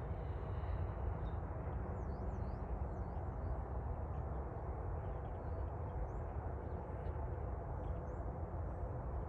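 Steady low outdoor rumble with faint, quick, high bird chirps scattered through it, most of them about two to three seconds in.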